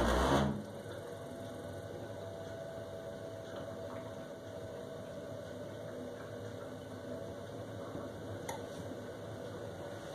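Worcester Bosch 29CDi Classic combi boiler: a short, loud rumble in the first moment as the burner gas switches, then the boiler running with a steady hum. The rumble is the fault that ends in the boiler's EA error code.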